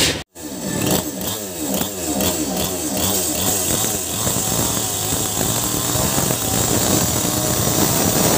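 Maestro Plus CS6500L two-stroke chainsaw. After a brief dropout about a quarter second in, its engine revs up and down in quick throttle blips, then runs steadily at high revs as the chain cuts into a large tree stump.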